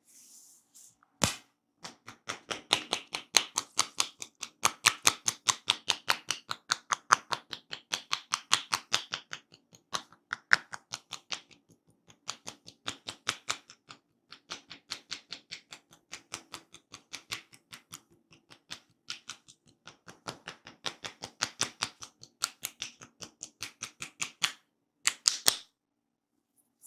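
Massage tapping: hands striking rapidly and evenly, about four or five taps a second, with a few short pauses. A single sharp tap comes about a second in, and two louder strikes near the end.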